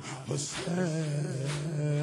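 Male voices chanting a Muharram mourning lament (noha) on a held note, with rhythmic chest-beating (sineh zani) about once a second.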